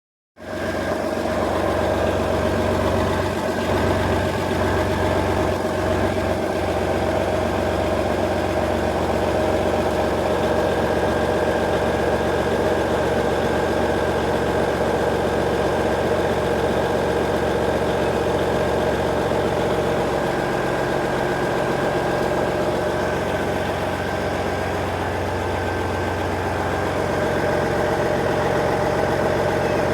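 Engine idling with a steady droning hum.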